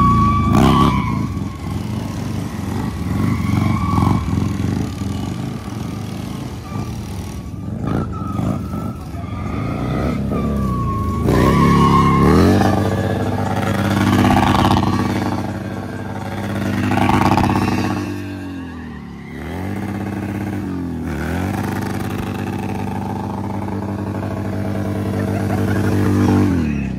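V-twin cruiser motorcycle engine revved hard and held high in a burnout, the rear tyre spinning and squealing on asphalt. The revs drop and climb back twice about two-thirds of the way through, then fall off at the end.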